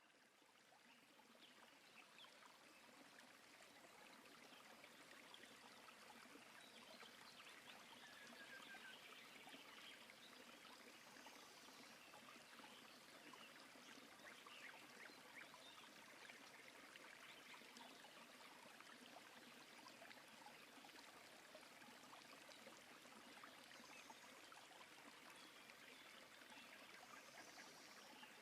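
Faint, steady rush of flowing river water, fading in at the start, with a few faint high chirps over it.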